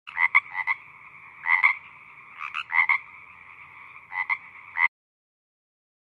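Toad croaking: four clusters of quick, rasping croaks over a steady lower call at the same pitch. The sound cuts off suddenly near the end.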